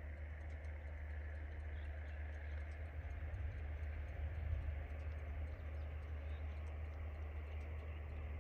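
Steady outdoor ambience: a low rumble with an even hiss over it and scattered faint ticks.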